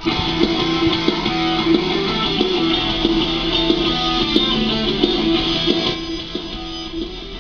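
Intro music: guitar-led track with plucked and strummed guitar, fading down in the last second or so.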